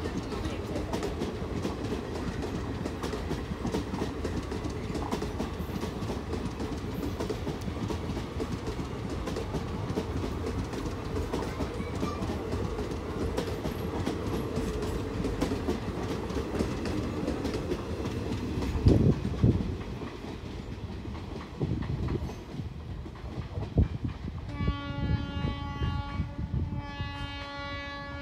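Express train passing at speed: a steady rumble full of rapid clickety-clack from the wheels over the rail joints, with a loud thump about two-thirds of the way through. Near the end the locomotive horn sounds two long blasts.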